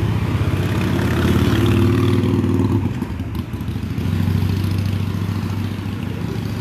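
A motor vehicle engine running close by, louder and a little higher in pitch from about one to three seconds in, then easing and running steadily.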